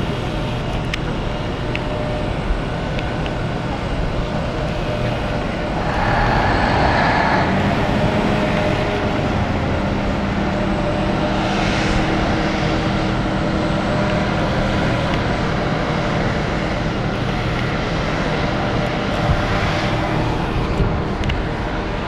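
Steady low mechanical rumble with a hum, a little louder from about six seconds in.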